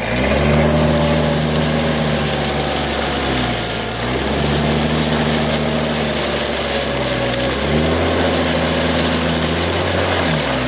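A 4x4's engine runs at raised revs while the SUV is stuck in deep snow. The revs sag and climb back about every three and a half seconds.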